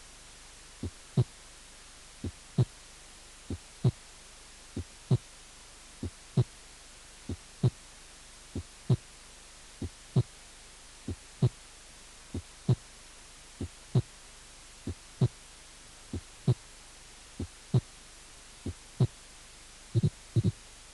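Heart sounds heard through a stethoscope: a slow, regular lub-dub about 47 times a minute, the second heart sound loud, louder than the first, as in an accentuated second heart sound. Near the end the rhythm changes to closely doubled beats.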